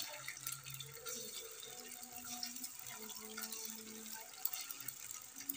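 Paneer cubes frying in hot oil in a kadai: a soft, steady sizzle with fine crackling, while more pieces are dropped in.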